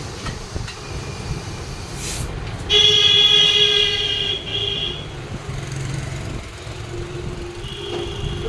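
A vehicle horn sounds once, loud and steady, for about a second and a half, just after a short hiss; a fainter horn tone comes again near the end over street traffic noise.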